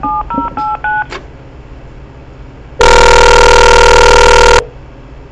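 Touch-tone phone keypad dialing: four quick two-note beeps in the first second. About three seconds in comes a very loud, harsh buzzing tone that lasts almost two seconds and cuts off suddenly.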